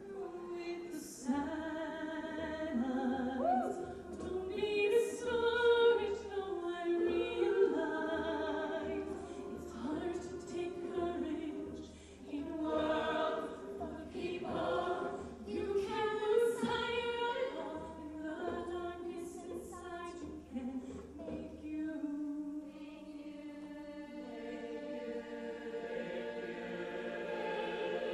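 Mixed show choir singing in harmony, with a low pulsing bass line under the voices that drops out about three-quarters of the way through, leaving the voices alone.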